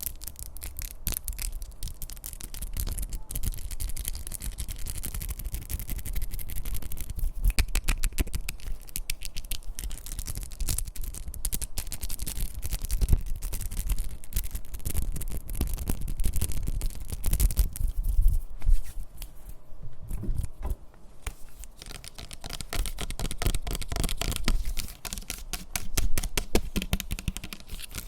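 ASMR tapping and scratching: a continuous stream of quick, dense taps and scratches on objects, with no voice.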